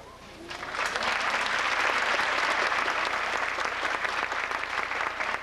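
Theatre audience applauding, the clapping building up about half a second in and then holding steady.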